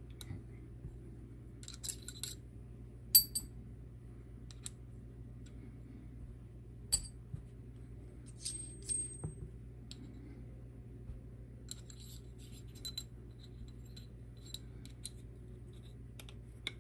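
Metal parts clinking and tapping as a helicopter main shaft and swash leveler tool pieces are handled and fitted together, with a sharp ringing clink about three seconds in and another near seven seconds, and lighter ticks after. A faint steady hum lies underneath.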